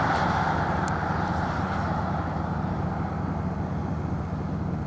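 Truck driving along a road: steady engine and road rumble, easing off slightly over a few seconds.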